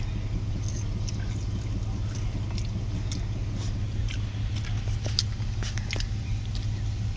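Car engine idling steadily, heard from inside the car, with scattered light clicks and taps over it.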